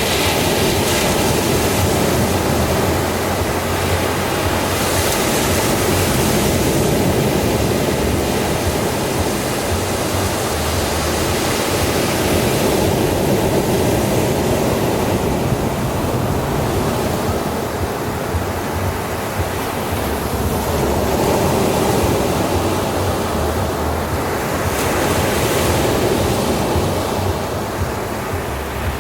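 Ocean waves breaking on a beach: a continuous wash of surf that swells and eases every few seconds, with a few brighter hissing wave-breaks.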